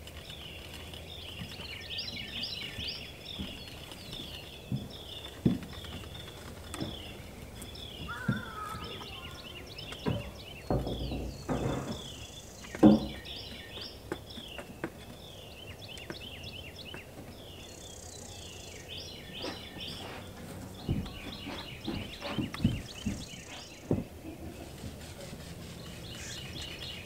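Birds chirping over and over, short quick calls, with a few dull thuds and knocks in between, the sharpest about five seconds in and the loudest around ten to thirteen seconds in.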